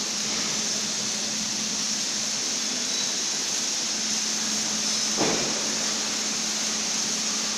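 Steady hiss with a low hum from workshop machinery, and one short knock about five seconds in.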